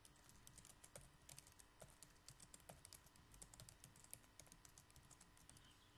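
Faint computer keyboard typing: a fast, irregular run of key clicks.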